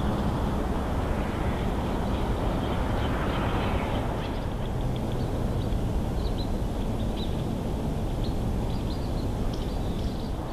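Outdoor camera-microphone ambience: a steady low rumble with small birds giving many short high chirps, most of them in the second half.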